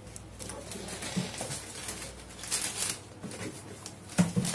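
Clear plastic packaging bag crinkling and rustling as it is handled and lifted out of a cardboard box, with a couple of knocks near the end.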